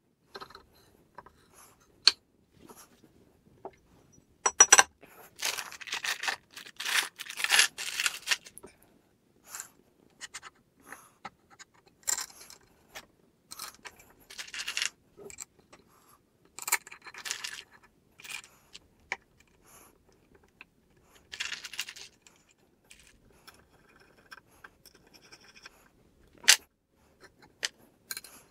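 Aluminium plate, screws and small metal parts being handled and fitted together: scattered clinks, taps and short scrapes of metal on metal, busiest in a run of several seconds, with one sharp click near the end.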